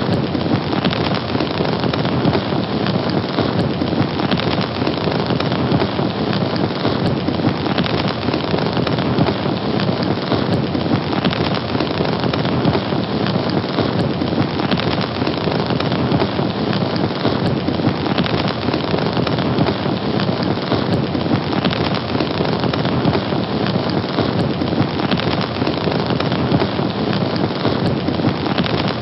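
Fire burning with a steady, dense crackle and hiss, unbroken throughout.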